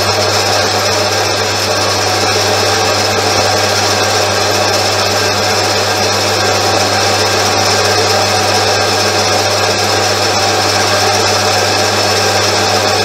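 Bench metal lathe running at a steady speed, its spindle and drive giving a steady hum while an insert tool turns down a small metal pin held in the chuck.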